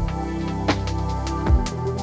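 Background music: an electronic track with sustained tones and a deep bass drum beat about every second and a half, with lighter percussive clicks between.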